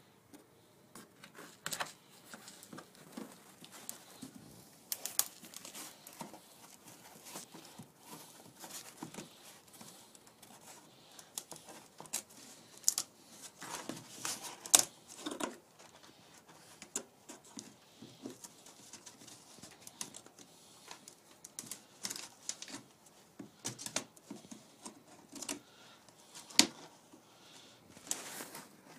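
Orange-handled cutters (nippers) gripping and pulling small tacks from the old wooden stem and gunwale of a canoe: irregular clicks, snaps and scrapes of metal on wood, with a few sharper snaps in the middle and near the end.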